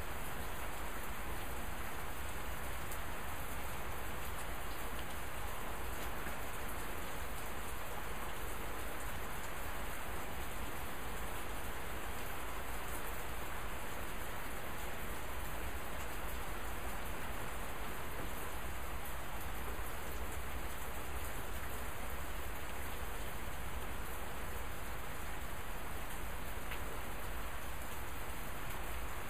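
Steady rain falling: an even, unbroken hiss with no thunder.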